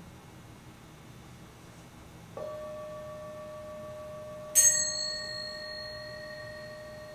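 Two bells struck one after the other. A lower-pitched bell rings out about two seconds in. About two seconds later a higher, brighter bell is struck, the loudest sound here, and both ring on and slowly fade.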